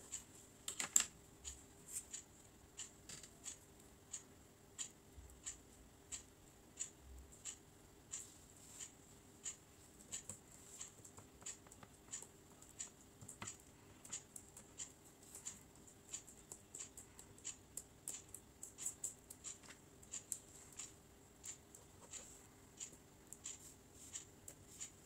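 Faint, irregular small clicks and taps of hands working at a plastic plate, fingertips pressing a glued paper flower down onto it, about one or two clicks a second.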